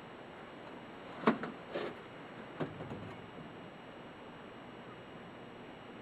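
A few short knocks or bumps over a steady faint hiss; the first, about a second in, is the loudest, with two softer ones in the next second and a half.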